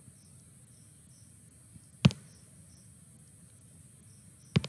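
Two sharp computer-mouse clicks about two and a half seconds apart, the second with a quick double tap. Behind them runs a steady faint high chirping, repeating about twice a second, over a low hum.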